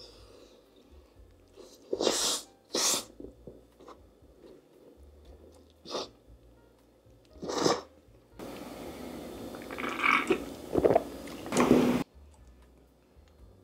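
Close-up eating sounds: four short, loud, breathy bursts spread through the first half, then about four seconds of louder chewing and crunching over a steady hiss that starts and stops abruptly.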